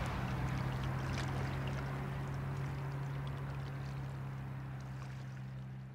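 Steady low drone of a river ship's diesel engine running on the Rhine, under a soft wash of water noise, slowly fading toward the end.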